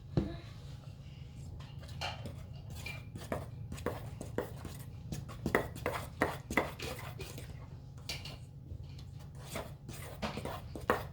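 Spoon stirring a thick glue and shaving-cream slime mixture in a bowl: irregular clinks and scrapes against the bowl, a few ringing briefly.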